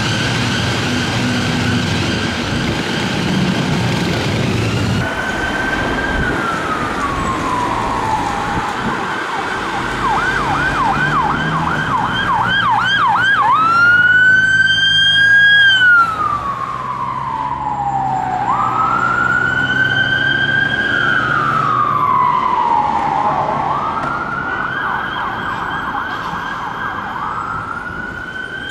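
Siren of a Metropolitan Police Ford Transit personnel carrier: a slow wail rising and falling about every five seconds, switching for a few seconds in the middle to a fast yelp, loudest as the van passes close. For about the first five seconds, before it starts, an ambulance siren sounds at a steadier pitch.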